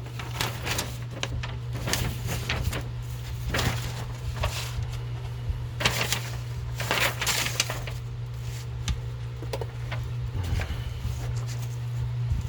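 Scattered light clicks and rustles of small plastic scale-model kit parts being handled and sorted, over a steady low electrical hum.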